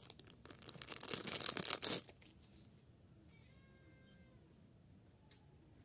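Thin plastic candy wrapper crinkling and rustling in the hand as a swirl lollipop is unwrapped, a dense crackle for about two seconds. It then stops, followed by a single soft click near the end.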